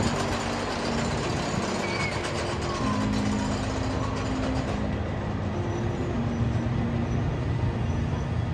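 A roller coaster train rumbling steadily along a wooden track. Low held tones that shift in pitch every second or two run underneath.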